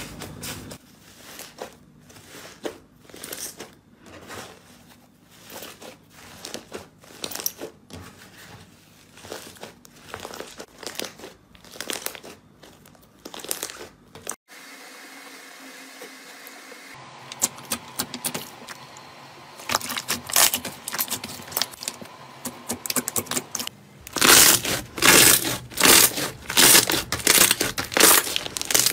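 Slime squeezed and kneaded by hand: irregular wet squishes and crinkly crackles, growing louder and denser in the last few seconds.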